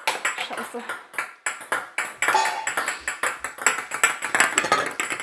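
Small plastic balls bouncing on a hard tabletop and clattering into the plastic grid of a 4 Gewinnt Action bounce-ball game. A rapid, irregular run of sharp clicks and taps with a short ringing edge, busiest in the second half.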